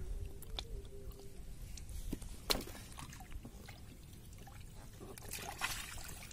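Water trickling and dripping, with scattered small clicks and rustles of wet handling; one sharper click about two and a half seconds in.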